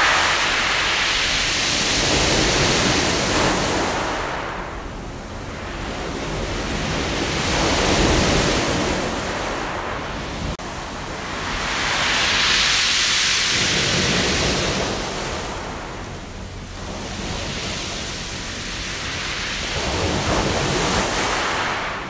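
Waves breaking on a beach of round pebbles (mongdol) and washing back through the stones with a hissing rattle. The surf swells and fades in repeated surges, about every four to six seconds.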